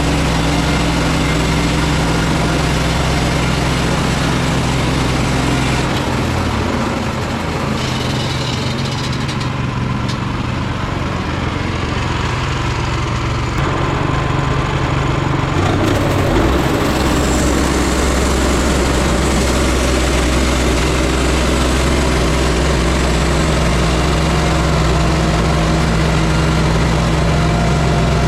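Small engine of a portable sawmill running steadily while milling a log, its note dropping and thinning about 6 seconds in and returning to a fuller, steady tone about 16 seconds in.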